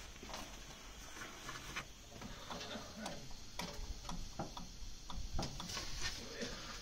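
Faint, irregular clicks and small taps of hands handling parts in an old car's engine bay.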